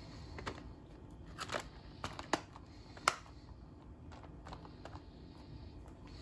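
Handling of a Blu-ray box set's packaging: a scattered series of sharp clicks and short rustles, the loudest two a little past the two- and three-second marks, with fainter ticks after.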